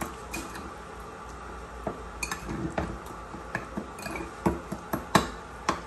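Metal spoon clinking and scraping against a small ceramic bowl and a glass spice jar while a seasoning paste is stirred and spice is scooped. The clinks are light and irregular, the loudest a little after four seconds and around five seconds.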